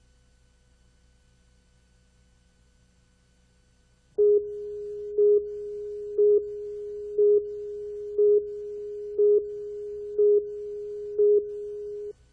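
Videotape slate countdown tone: after about four seconds of near silence, a steady pure tone with a louder beep once a second, eight beeps in all, cutting off suddenly near the end.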